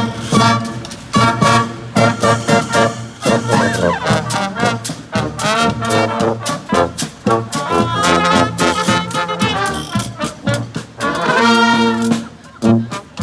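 Brass street band playing an upbeat second-line tune, horns in full swing.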